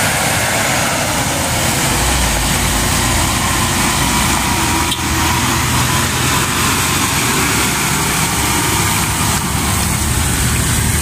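Hino 500 FM 280 JD dump truck's diesel engine pulling uphill past close by, a steady low drone that grows louder about two seconds in, with tyre and road noise over it.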